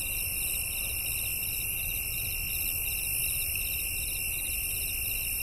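Steady high-pitched buzzing with a quick, even flutter running through it, at an unchanging level over low street background noise.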